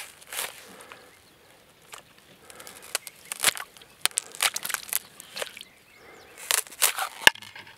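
Thin ice on a frozen puddle cracking and breaking under a hand pressing on it: irregular runs of sharp crackling and snapping, busiest from about two and a half to five and a half seconds in and again near the end.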